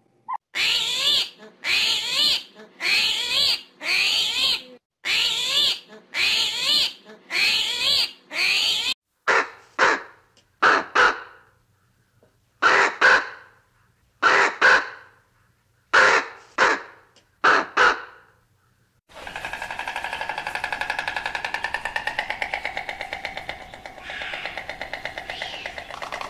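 A run of animal calls. First come about eight harsh, evenly spaced calls of roughly half a second each, then about eight shorter caws of a crow. After a brief gap, a continuous rasping call with a fast pulse runs to the end.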